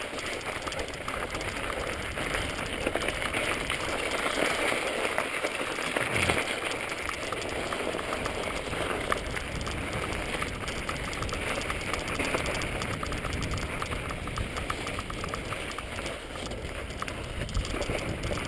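Mountain bike riding over snow- and ice-covered singletrack: a steady crackling crunch of tyres on snow, with the rattle of the bike over the rough trail and a thump about six seconds in.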